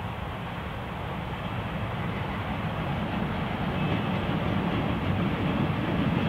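Y class diesel-electric locomotive with an EMD 567C engine approaching with its train, the engine's low, steady rumble growing gradually louder as it nears.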